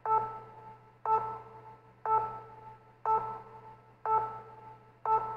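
An electronic chime-like tone sounding about once a second, six times, each note starting suddenly and fading away before the next.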